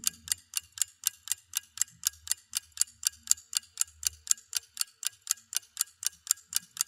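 Steady, rapid ticking sound effect, about five sharp ticks a second, even and unbroken.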